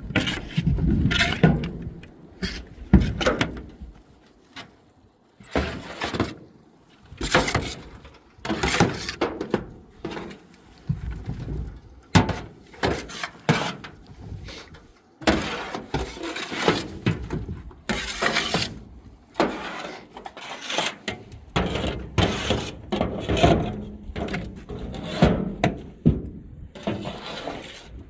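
A shovel scraping and thudding on a cowshed floor in repeated, irregular strokes, about one every second or two: manure being cleared out.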